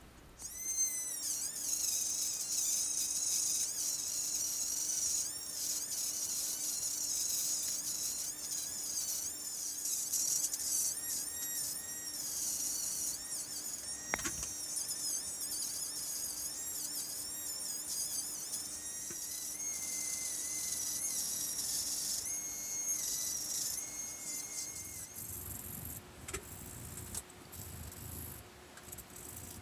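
Handheld rotary tool with a sanding drum grinding cast polyester resin: a high-pitched whine that wavers and dips as the drum bites into the resin, with a click partway through. Near the end the tool stops and hand sanding takes over, sandpaper rasping on the resin.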